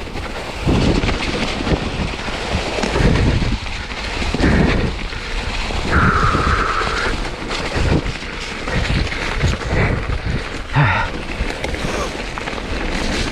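Mountain bike riding down a rough, wet trail: wind noise on the microphone with repeated knocks and rattles from the bike over the ground. A brief high squeal, typical of wet disc brakes, comes about six seconds in.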